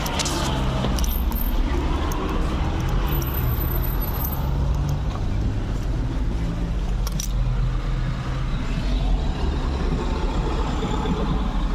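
Fujitsu air conditioner running in cooling mode: a steady low hum over even fan noise.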